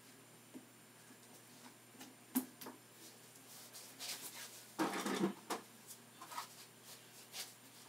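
Scattered light knocks, clicks and clatter of household objects being handled and set down, with a busier cluster of handling noise about five seconds in.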